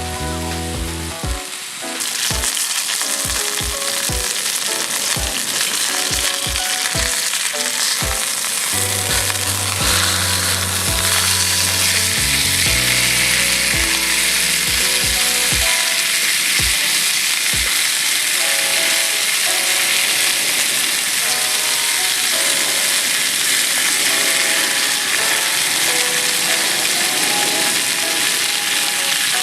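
Food frying in a pan, a steady sizzle that grows thicker about two seconds in and again around ten seconds in. Background music with a beat plays underneath, its beat dropping out after about seventeen seconds.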